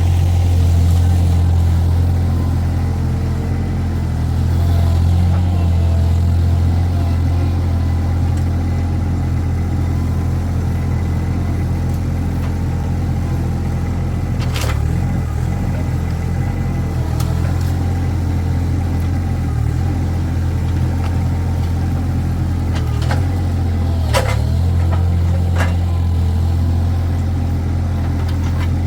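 Mini skid steer's engine running steadily under load, with a few sharp knocks in the second half as it works.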